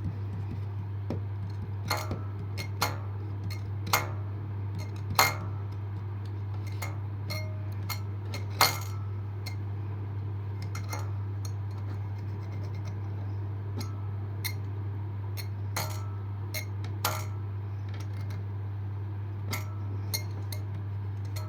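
Light, irregular metallic clicks and clinks from a harmonium reed and a small file being handled, during work to stop a buzzing reed whose tongue touches its frame. A steady low hum runs underneath.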